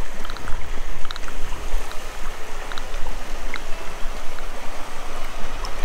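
Rush of flowing river water close to the microphone, with small splashes and drips scattered through it.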